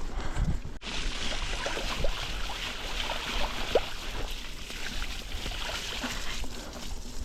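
Running water trickling and bubbling, like a small winter stream or runoff. It comes in abruptly a little under a second in.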